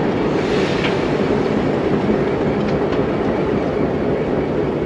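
Hitachi diesel-electric locomotive idling with a steady low rumble while it stands waiting for the signal to depart.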